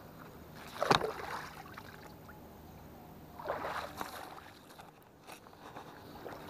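Handling and movement noise from an angler on the move with a spinning rod: a sharp knock about a second in and a scuffing rustle a little past halfway, over a faint steady low hum.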